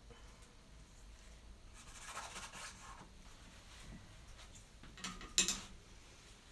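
Paintbrush strokes scraping oil paint across a canvas: one longer scrubbing stroke about two seconds in, then two short, sharper strokes near the five-second mark, the loudest of them.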